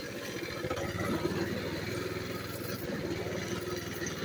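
Mini bike's small engine running steadily as it rides along.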